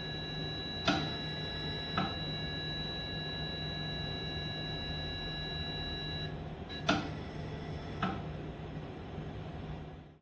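VITAL ventilator alarm sounding a steady high-pitched electronic tone over a low hum, cutting off about six seconds in as the alarm clears. Four sharp clicks: two before the tone stops and two after.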